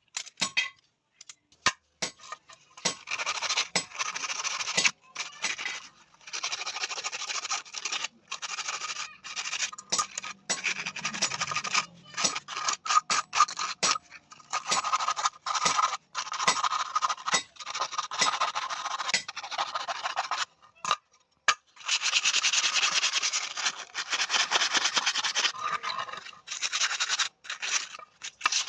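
Abrasive paper rubbed back and forth along the steel rod of a hand-forged tong, a scratchy rasping in runs of several seconds broken by short pauses.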